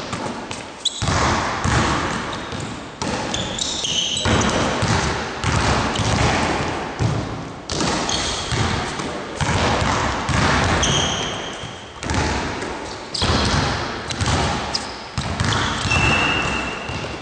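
Basketballs bouncing on a hardwood gym floor, with repeated hard bounces ringing through a large hall. Short high sneaker squeaks on the floor come and go.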